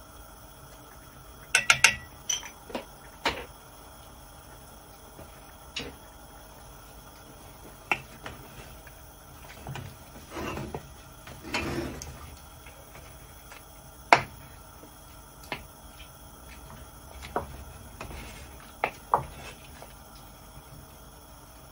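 Spoons knocking and scraping against an aluminium cooking pot while the stew is seasoned and stirred. A quick run of sharp metallic taps comes about two seconds in, then scattered single knocks and a longer stirring scrape around the middle.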